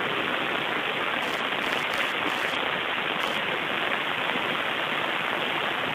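Steady, even hiss of background noise on a radio broadcast feed, with a dull, muffled top like a telephone line.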